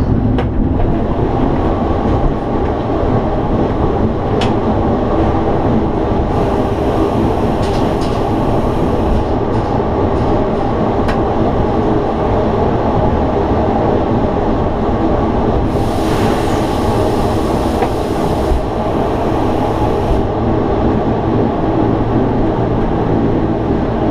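Bavarian Zugspitze Railway rack (cog) train running uphill through its tunnel, heard inside the driver's cab: a steady, loud running drone with a few sharp clicks. A high hiss comes in twice, about a quarter of the way in and again about two-thirds in.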